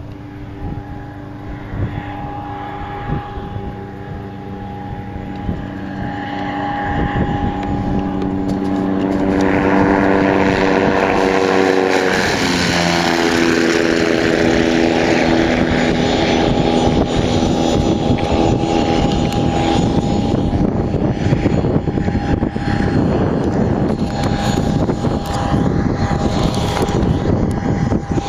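Interceptor weight-shift trike ultralight's propeller engine flying past low: a steady drone grows louder as it approaches, drops in pitch as it passes, about halfway through, then stays loud as it climbs away.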